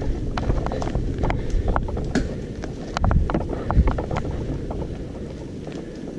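Mountain bike riding fast over a dirt trail: wind buffeting the camera microphone over a low rumble of tyres on dirt, with frequent sharp clicks and rattles from the bike jolting over the bumps. It eases off over the last couple of seconds.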